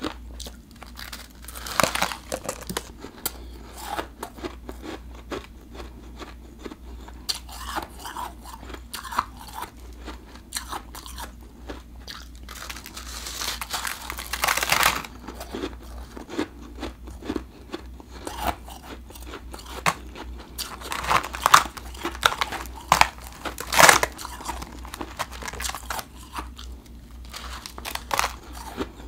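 Biting and chewing of refrozen blended powdery ice: irregular crisp crunches as chunks break off, with a longer stretch of dense crunching about halfway through and the loudest bites in the last third.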